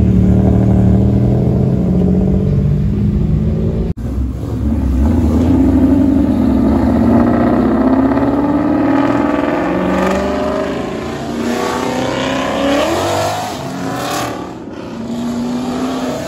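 Ford Mustang engine held at high revs while the car slides sideways, the pitch climbing and wavering. The sound cuts out for an instant about four seconds in. Near the end it falls away to a lower, quieter running.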